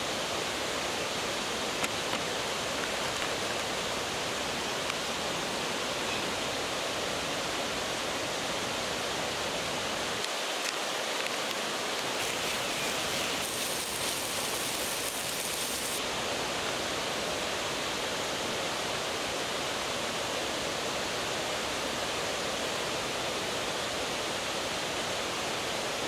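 Mountain valley stream rushing steadily, an unbroken wash of water noise; a brighter hiss rides on top for a couple of seconds around the middle.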